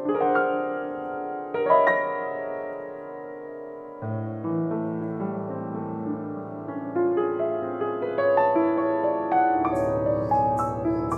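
Instrumental ensemble music led by piano, playing chords of held notes; a deeper sustained bass line comes in about four seconds in and drops lower near the end, where light cymbal strokes also join.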